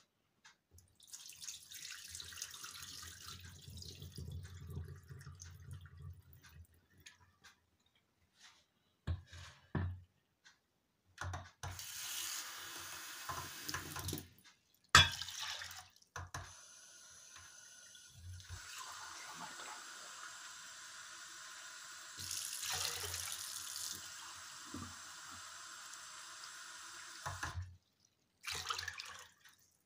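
Kitchen tap running and splashing into a mug, with water poured from the mug into a metal pot of rinsed millet several times; at first the rinse water is poured off into a steel sink. A single sharp knock about halfway through is the loudest sound, and a long steady run of tap water follows it.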